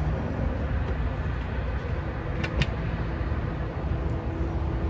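Steady low rumble of a motor vehicle engine running, with a faint hum, and two short clicks about halfway through.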